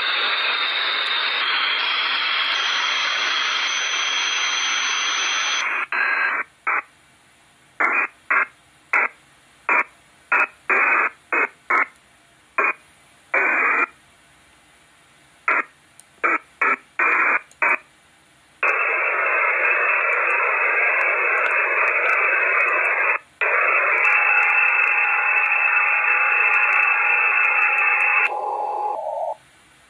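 Radio receiver static while scanning frequencies. Steady hiss for about six seconds, then a string of short bursts of static with silence between them, then about ten seconds of steady static that drops out once briefly. Near the end a faint steady tone sounds just before it cuts off.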